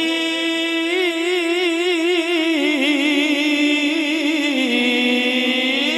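A man's voice chanting a long drawn-out melodic line with a wavering vibrato, the held note stepping down in pitch twice, in the sung recitation style of an Islamic sermon.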